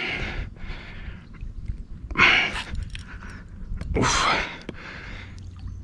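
A man breathing hard, with three heavy, breathy exhales about two seconds apart; the last is a loud "ouf". This is the strain of playing a big wels catfish on a bent rod.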